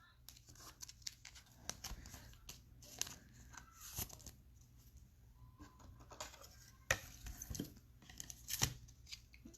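Trading-card pack wrappers being torn open and crinkled, a run of irregular sharp crackles and short rustles.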